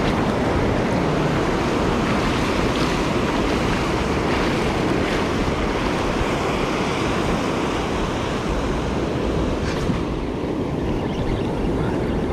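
Ocean surf breaking and washing up the sand, a steady rushing wash, with wind buffeting the microphone.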